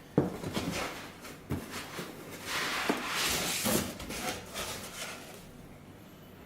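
Cardboard box and packing being handled: a few dull knocks with rubbing and scraping, loudest about midway, then quieter handling.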